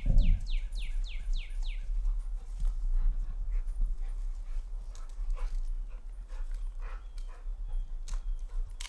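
Two pit bull-type dogs playing on dry grass and leaves: paws scuffling, with scattered light clicks and rustles. A quick run of six or seven short, high, falling whistle-like calls comes in the first two seconds, under a steady low rumble.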